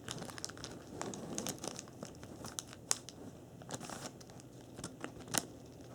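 Wrapper of a 2010 Topps baseball card pack crinkling and tearing as it is carefully opened by hand: scattered soft crackles with a few sharper snaps, the loudest near the end.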